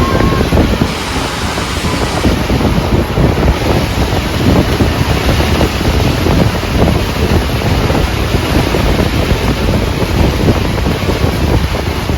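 Loud wind buffeting the microphone, with the rushing road noise of a moving car, rough and uneven throughout.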